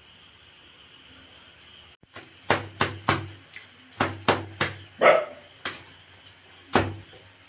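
Hands clapping and slapping a freshly fried petai paratha between the palms to beat it into flaky layers: a run of sharp slaps, mostly in quick groups of two or three, starting about two seconds in.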